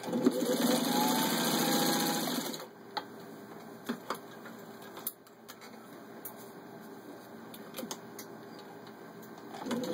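Singer 15-91 sewing machine with its gear-driven potted motor stitching at speed through four layers of vinyl upholstery; the motor whine rises as it speeds up. About two and a half seconds in it stops. A much quieter stretch of faint hum and scattered clicks follows, and the machine starts sewing again near the end.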